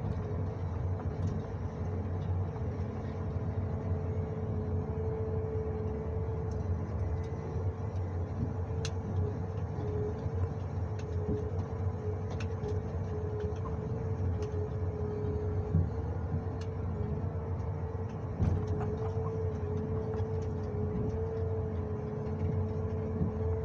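John Deere 1910G forwarder running steadily under crane work, heard from inside the cab: a low engine rumble with a constant whine on top. A few light knocks come as the grapple handles logs.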